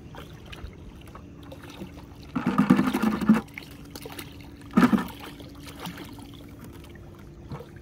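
Water gushing out of a black plastic five-gallon bucket tipped over into shallow water, in two pours: a longer one about two and a half seconds in and a short one near the five-second mark.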